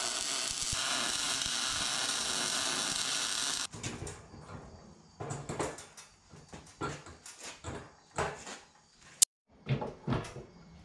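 Electric arc welding on steel: a steady sizzle for the first three and a half seconds that stops abruptly. Then scattered knocks and clanks of steel parts being handled.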